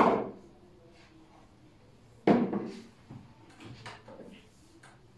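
Hard plastic toys knocked and set down on a windowsill: a sharp clack at the start, another about two seconds in, then a few lighter clicks.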